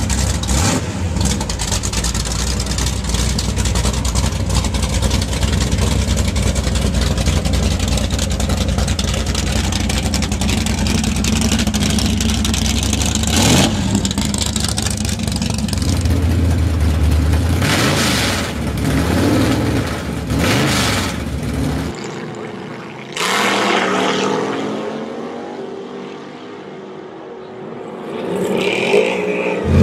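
1963 Chevrolet Impala Z-11's 427 cubic-inch V8 running loudly at idle, then revved up and down several times. After a cut about 22 seconds in, a car launches down a drag strip with a sudden burst of engine noise that fades away into the distance.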